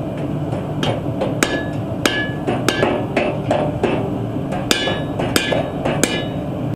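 Hammer striking steel on an anvil: about ten ringing metallic blows at an uneven pace, working the spring-steel sword blade, over a steady low rushing noise.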